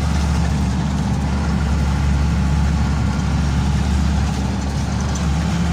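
Bus engine running at a steady low drone with road noise, heard from inside the bus.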